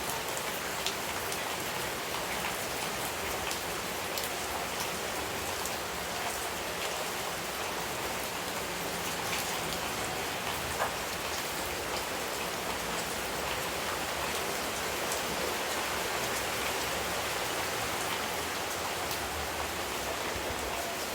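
Steady rain falling, an even patter with many separate drops ticking on a surface.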